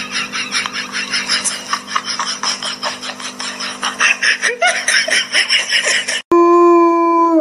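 Rapid, quick-fire giggling laughter over a steady low hum. About six seconds in it breaks off and a loud held pitched tone takes over for about a second, then slides down in pitch.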